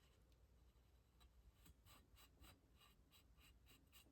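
Near silence with a few faint, scattered light ticks and rustles of small objects being handled.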